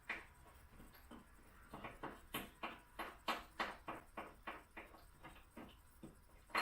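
Hand socket ratchet clicking in a quick, even rhythm, about three clicks a second, as a loosened subframe bolt is backed out on a long extension.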